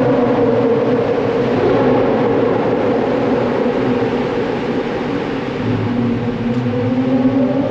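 Pagani Zonda F's 7.3-litre Mercedes-AMG V12 exhaust, heard from a following car. The engine note eases off through the middle, then climbs again as it accelerates over the last couple of seconds.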